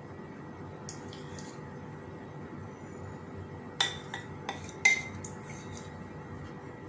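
A metal spoon clinks and scrapes against a stainless-steel tumbler and a bowl while thick semolina batter is spooned in. There are a few sharp clinks in the second half, the loudest about five seconds in, over a steady low hum.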